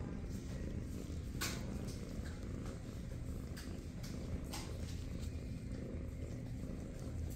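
A kitten purring steadily, close to the microphone, with a few brief clicks, the loudest about a second and a half in and again past four seconds.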